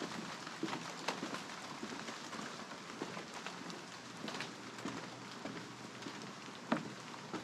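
Footsteps of a hiker crunching irregularly on dry leaves and twigs, over a steady rushing background.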